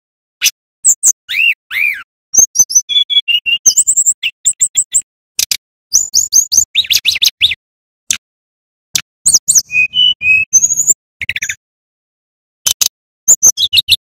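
Male brown-chested jungle flycatcher singing: loud, quick phrases of chirps, clicks and high whistled notes, with a couple of downslurred whistles, broken by short pauses.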